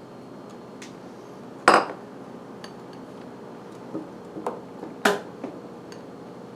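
Kitchen dishes and utensils knocking and clinking: a sharp clatter about a second and a half in, a few lighter clinks, and another sharp knock about five seconds in.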